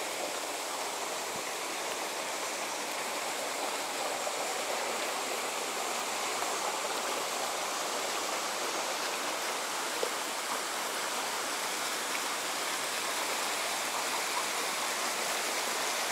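Creek water running steadily over a rock slab and into a pool: an even rushing hiss, with one faint tick about ten seconds in.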